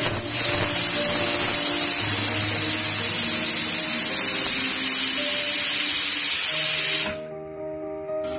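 Aluminium stovetop pressure cooker's weighted vent releasing steam: a loud, steady hiss that cuts off suddenly about seven seconds in, the cooker having reached full pressure. Background music plays underneath.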